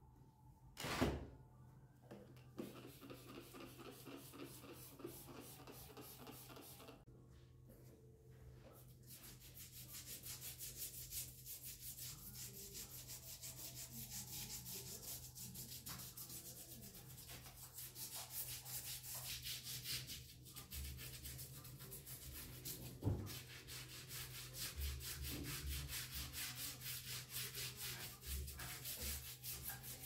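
Small brush scrubbing dirty tile grout on a floor: rapid, even back-and-forth strokes that start up about nine seconds in and keep going. A single knock about a second in.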